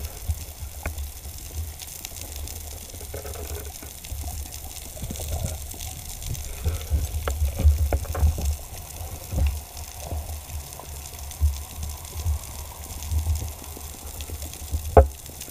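Underwater noise heard through a camera housing: a muffled, pulsing low rumble of water moving past as the diver swims, with scattered faint clicks and a sharper knock near the end.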